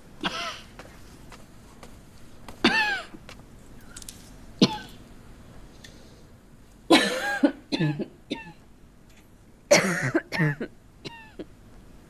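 A woman coughing: a string of short, harsh coughs spread over several seconds, some in pairs, the loudest about seven and ten seconds in. The fit is from a sick woman coughing up blood.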